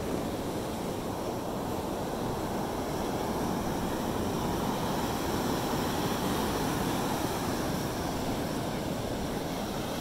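Ocean surf: waves breaking and washing up the beach in a steady rush of noise that swells a little in the middle.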